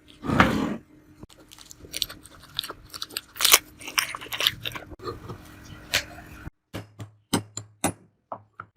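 Hand work on the metal parts of an old meat grinder: a short burst of scraping near the start, then irregular clicks, knocks and scrapes of metal being handled and worked.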